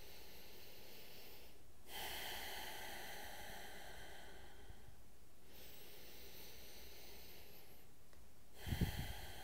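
A man breathing slowly and deeply: one long breath about two seconds in, lasting about three seconds, and another beginning near the end, joined by a few low thumps.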